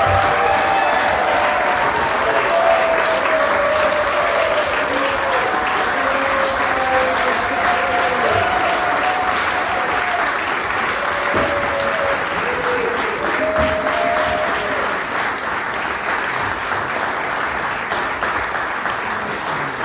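Audience applauding steadily, with voices calling out over the clapping now and then.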